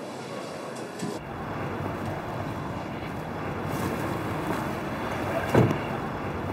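A car running as it drives up, a steady rumble that starts about a second in, with one sharp thump about five and a half seconds in.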